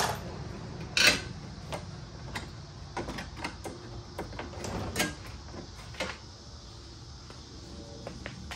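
A long black metal bracket being worked loose and lifted out of a Lexus GX470's front end: a string of clunks and scrapes of metal on metal, the loudest about a second in. The sounds die down after about six seconds.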